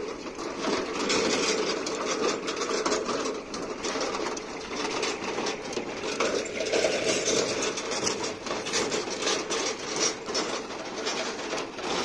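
Metal hand cart loaded with a washing machine rolling over a gravel lane: a continuous rattle of the cart body with the crunch of its wheels.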